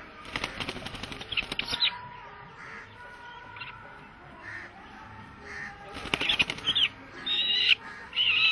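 A small bird held in a man's hands beats its wings in two bursts of rapid flapping, about a second in and again around six seconds. Short, high calls come between and after the bursts, the longest near the end.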